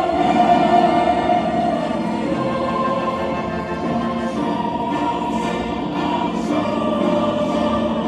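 Orchestra and choir performing classical music live, with long held notes.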